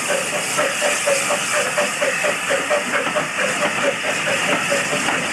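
Two small steam tank engines chuffing under power as they haul a train of carriages past, a quick even beat of about four exhaust puffs a second over steady hiss and the running of the coaches on the rails.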